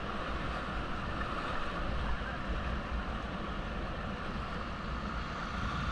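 Steady rush of river whitewater around a raft, with a low rumble of wind on the microphone.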